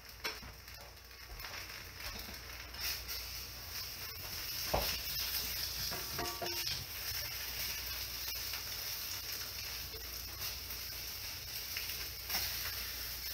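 Eggs sizzling in a frying pan on an electric stove, the sizzle growing louder about four seconds in, with a few short knocks and scrapes of a utensil against the pan.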